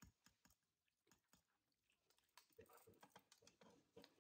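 Near silence, with a few faint clicks and scrapes of a wooden spoon and a wire trivet against the stainless steel inner pot of an Instant Pot.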